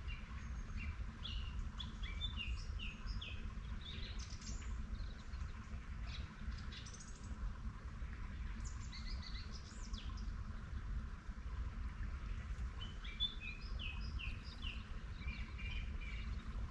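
A songbird singing in short phrases of quick, high chirping notes every few seconds, over a steady low rumble.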